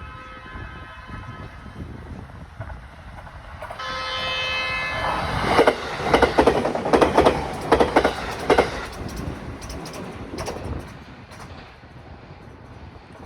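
A train approaching and passing at speed: steady tones sound first, a louder horn blast comes in about four seconds in, then the wheels clatter over rail joints in a run of loud sharp beats that fade away in the last few seconds.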